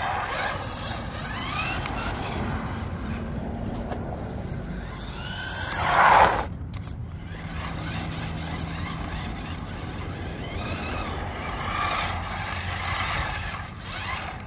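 1/10-scale RC touring car's 550 brushed motor and gear train whining as it drives, the pitch rising and falling with the throttle. There is one loud surge about six seconds in.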